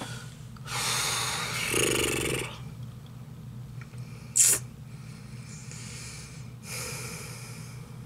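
A woman blowing out long breaths through pursed lips: a long exhale that ends in a short voiced groan, a short sharp breath about halfway through, then a softer exhale near the end.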